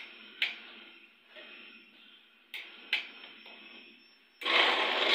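A few knocks and clicks from the steel blender jar being handled on its base. About four seconds in, the electric blender's motor starts with a loud, steady whir, grinding falsa berries for sharbat.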